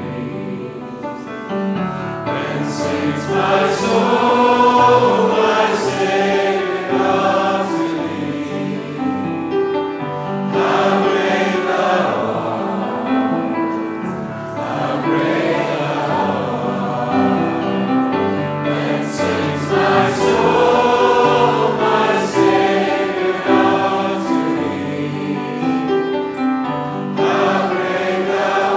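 A choir singing a slow hymn in several parts, over low held bass notes that change step by step.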